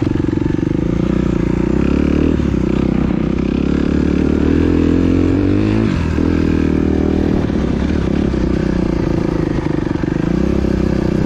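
Motocross dirt bike engine running under throttle as the bike is ridden over a dirt track, its pitch rising and falling as the rider opens and closes the throttle, with a brief drop about six seconds in.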